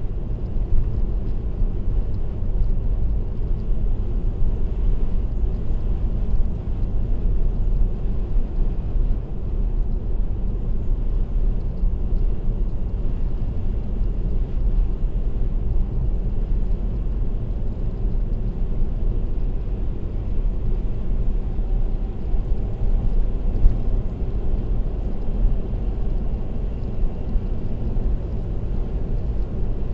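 Steady road and tyre noise of a car driving at expressway speed, a low rumble without change.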